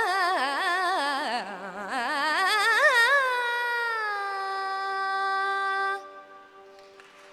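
A voice singing a wordless, heavily ornamented Carnatic-style phrase with fast pitch oscillations over a steady drone. The phrase dips lower, rises again, then settles into a long held note that ends about six seconds in, leaving only the faint drone.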